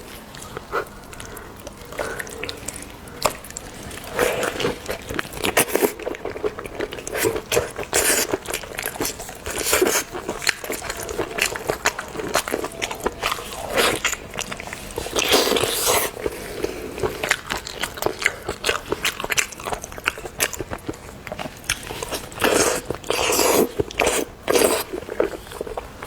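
Close-miked eating in a mukbang: biting and chewing seafood, with irregular wet clicks and crunches that come in louder clusters.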